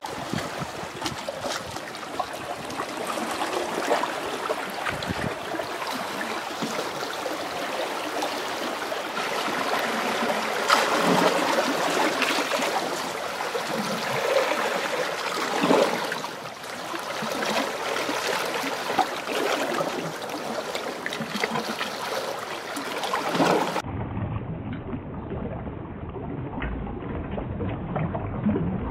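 Seawater washing and gurgling against shoreline rocks, a steady rushing noise. About 24 s in it changes abruptly to a duller, muffled rush with a low rumble.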